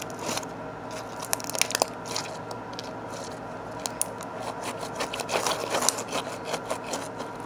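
Slime being squeezed and stretched in the hands close to the microphone: scattered crackles and small wet pops, bunched about a second in and again around five to six seconds in.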